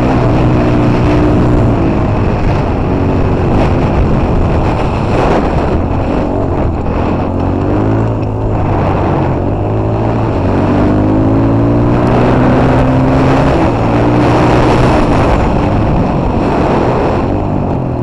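Dirt bike engine running under way, its pitch falling and rising with the throttle and climbing again about ten seconds in.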